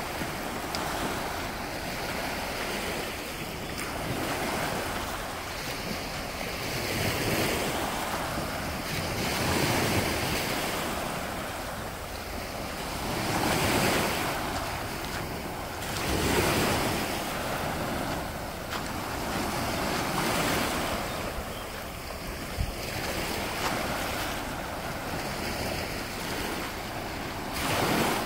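Small Baltic Sea waves breaking and washing up onto a pebbly sand beach, the surf swelling and easing every few seconds.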